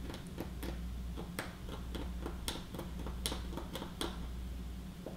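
Light, irregular clicks and scratches of a small metal tool cleaning the solder pads of a TV LED backlight strip, over a steady low hum.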